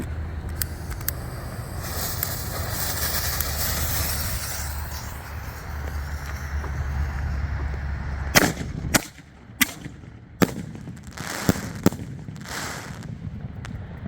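Firework canister shells (Master 7s) going off: a few seconds of hissing, then a run of sharp bangs about halfway in, really loud.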